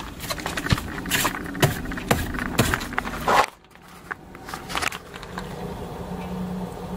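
2000 Hyundai Accent heard from inside: rattling and clicking for about three and a half seconds, then a steady low hum that grows from about five seconds in. This is the hum the owner suspects comes from bad wheel bearings.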